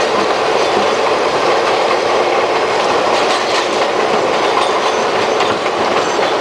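St. Louis Car Company R42 subway cars running at speed on elevated track: a loud, steady rumble of steel wheels on rail with light clicking over the rail joints, heard at the end of a car by the gap between cars.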